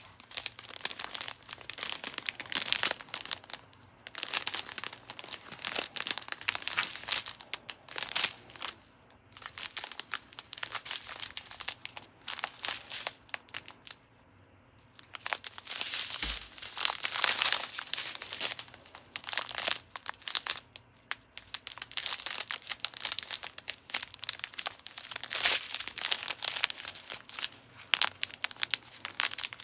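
Crinkling of thin plastic strips of sealed diamond-painting drill bags as they are picked up, handled and laid out, in uneven bursts with a short lull about halfway through.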